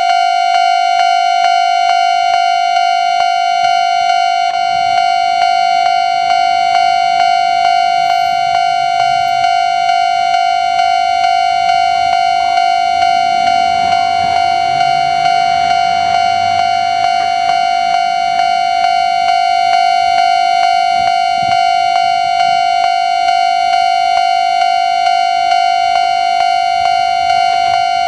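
Japanese railway level-crossing warning bell ringing continuously, one electronic clanging tone repeating in an even rhythm. A train's low rumble rises and fades beneath it about halfway through.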